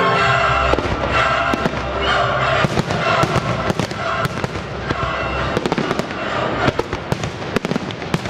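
Fireworks going off in quick succession, sharp bangs and crackling shells that thicken from about two and a half seconds in, over the show's music soundtrack.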